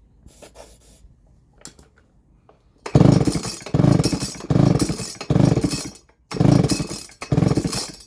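Baumr-AG SX92 two-stroke chainsaw being pull-started: after some faint handling, six quick pulls on the recoil starter about a second apart, the engine cranking over on each without catching, which the owner puts down to it not getting fuel.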